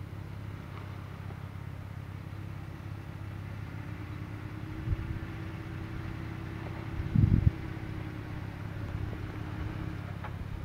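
Jeep Wrangler JK's engine running low and steady as it crawls down a rutted dirt trail, with a faint hum above the rumble. Two short low thuds come about five and seven seconds in, the second the louder.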